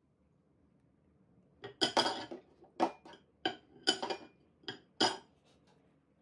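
Small fine-mesh metal sieve being tapped to sift a white powder onto a dessert: about eight quick, irregular metallic taps, starting nearly two seconds in and stopping about five seconds in.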